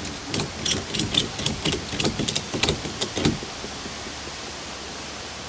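Ratchet tie-down strap being tightened: a quick run of metallic clicks for about three seconds, then they stop, over a steady background hiss.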